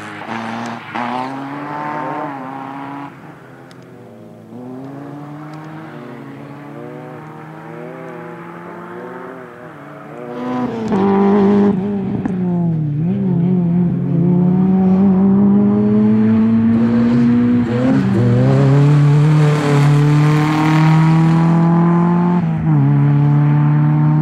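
Rally-prepared Opel Corsa's engine revving hard, its pitch climbing under throttle and dropping sharply at lifts and gear changes. It is fainter for the first ten seconds and much louder from about ten seconds in, as the car runs closer.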